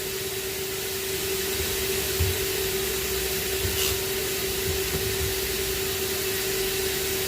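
Steady whine and air rush of a vacuum-type blower motor running at constant speed, with a few faint low knocks.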